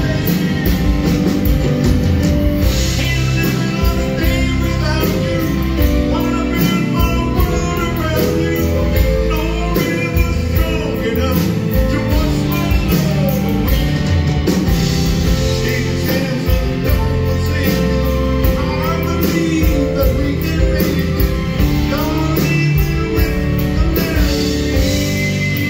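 A man sings a song live over a backing band that includes electric guitar.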